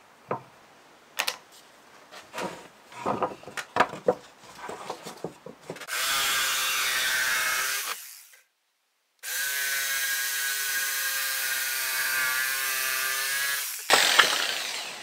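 Light knocks and scraping of pencil and board being handled, then a Worx jigsaw cutting into a wooden board, running steadily for about two seconds, breaking off into a second of silence, then running again for about five seconds before stopping near the end, followed by a few knocks.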